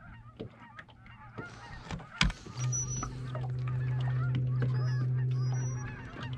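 Minn Kota electric trolling motor running with a steady low hum for about three seconds, starting a little over two seconds in. A sharp click comes just before it, and light ticks are heard throughout.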